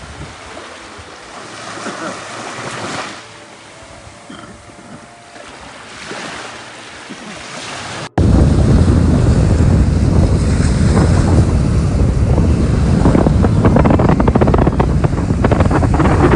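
Sea waves washing onto a shore, swelling and easing for the first several seconds. About eight seconds in the sound cuts out for an instant, then returns much louder, with heavy wind rumble on the microphone over the surf.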